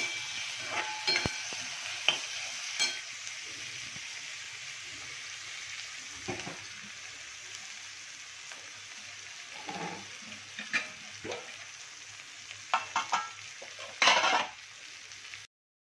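Sliced onion and green capsicum sizzling in oil in a steel kadai, with a steel spatula scraping and clicking against the pan now and then. A louder scrape comes near the end, then the sound cuts off suddenly.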